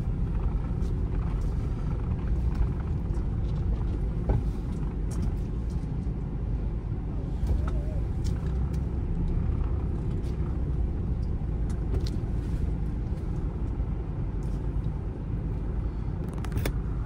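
Mitsubishi Pajero's diesel engine idling with a steady low rumble, heard from inside the cabin as the SUV creeps slowly forward.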